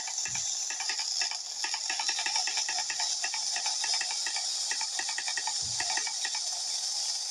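A firework hissing steadily with an even, rapid crackle of about five pops a second, and two brief dull thuds.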